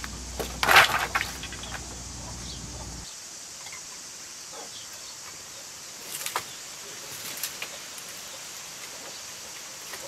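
Armful of dry sticks set down with a brief loud clatter and crackle, followed by scattered knocks and snaps as sticks are handled again later.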